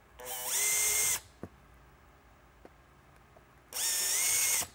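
Cordless drill-driver driving screws back into an LED lighthead housing, in two short runs of about a second each. In each run the motor whine rises as it spins up and then holds steady.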